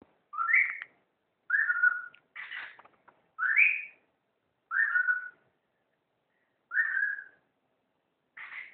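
Male cockatiel whistling its courtship song: a string of short whistles, most rising in pitch, about one a second, with a couple of harsher chirps among them.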